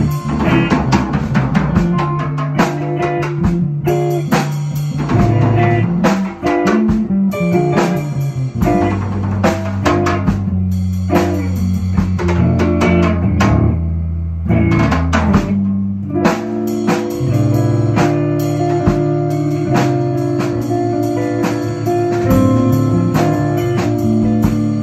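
A live rock band playing: guitar and bass notes over a drum kit, loud and close, with the drums thinning out briefly about fourteen seconds in.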